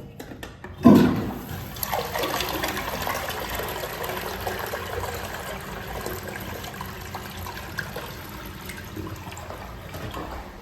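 Toto toilet with Tornado Flush being flushed: a sudden loud gush of water about a second in, then a steady rush of swirling water that slowly dies down.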